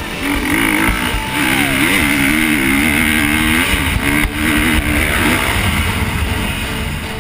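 KTM 350 XC-F's single-cylinder four-stroke engine running under throttle, its revs rising and falling. It is loudest for the first five seconds, then eases a little.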